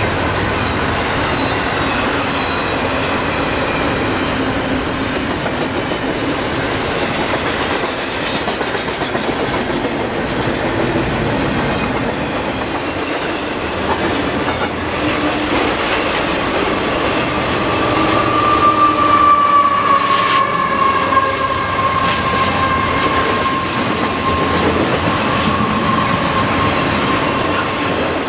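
Freight train of double-stack container well cars and autoracks rolling steadily past, its steel wheels running on the rails. A high-pitched wheel squeal grows in the second half.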